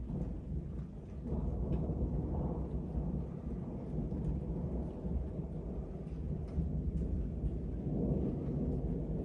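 Thunder rumbling low and rolling, swelling about a second in and again near the end.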